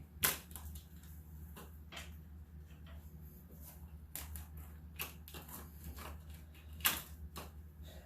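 Scattered clicks and light knocks of metal hand tools being handled, about half a dozen over the stretch, with a steady low hum underneath.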